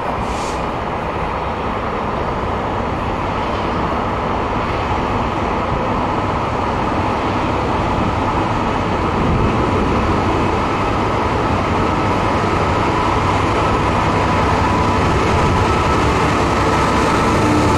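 A train running past at speed, a steady rolling rush of wheels on rail that slowly grows louder, with a faint high whine coming in during the second half.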